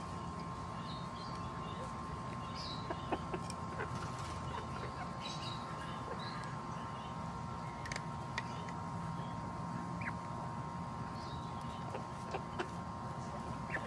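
Backyard hens foraging: short, scattered high chirps and soft calls, with a few sharp pecking clicks, over a steady thin tone and background hiss.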